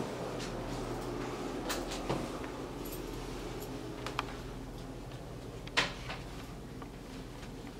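A steady low hum from a machine, fading away, with scattered light knocks and clicks and one sharper knock near the end.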